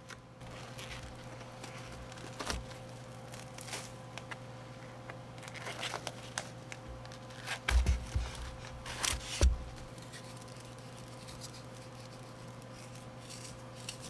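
Plastic cling film being cut and peeled off a foam meat tray, crinkling and tearing in short bursts. Louder knocks of the tray on the wooden board come at about 8 and 9.5 seconds.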